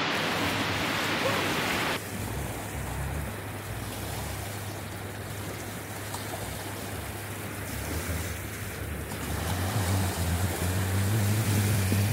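Sea surf washing onto the beach, with wind rumbling on the microphone that grows stronger near the end. The hiss drops suddenly about two seconds in.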